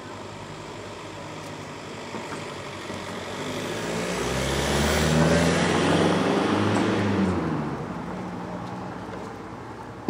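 A motor vehicle driving past close by: its engine and tyre noise grows louder to a peak about halfway through and then fades away.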